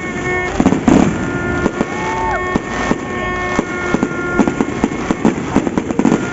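Fireworks and firecrackers going off, a dense run of sharp, irregular cracks and pops.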